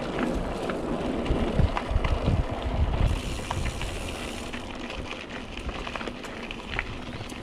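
Mountain bike rolling over a gravel path: tyre crunch with scattered clicks and rattles from the bike, and wind buffeting the microphone, heaviest in the first half.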